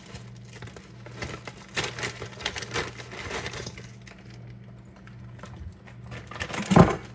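Plastic bag of light brown sugar crinkling as it is squeezed and shaken out over a metal mixing bowl, with a dull thump near the end.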